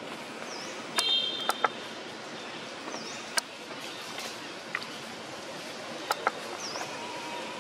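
Outdoor background ambience: a steady hiss with a few sharp ticks and snaps, loudest about a second in, and a short high chirp that comes back about every three seconds.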